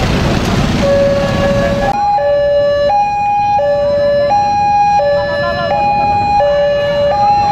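Electronic two-tone warning siren sounding hi-lo, a high note and a low note alternating at about 0.7 s each. Street and crowd noise underneath cuts off about two seconds in, leaving only the siren.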